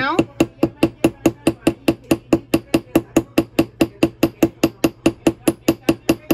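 A riveting hammer's cross peen taps a wire rivet through a copper sheet resting on a steel block, spreading the rivet head. It is a rapid, even run of light metal-on-metal strikes, about five a second, each with a short ring.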